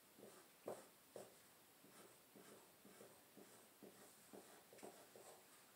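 Faint, irregular scratching of pencils drawing on paper, in short strokes several times a second.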